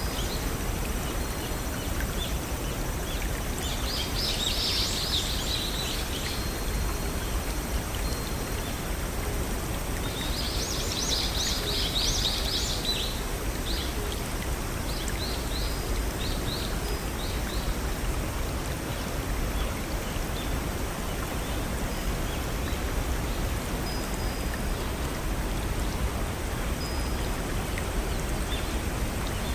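Steady rush of a small waterfall or brook, with songbirds singing high over it: two bursts of rapid chirping trills, about four and ten seconds in, then scattered single chirps.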